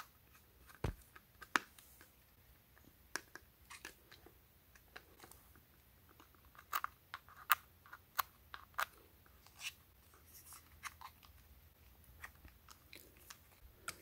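Quiet, irregular small clicks and scrapes of hand work on wiring terminals: a Phillips screwdriver turning a terminal screw and fingers wrapping a wire around it on the plastic back of a Ring Video Doorbell 2.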